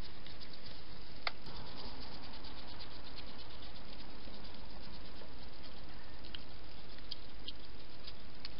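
Steady hiss from a trail camera's microphone, with scattered faint ticks and rustles and a sharper click about a second in and a few more near the end, from a wild hedgehog moving about on paving close to the camera.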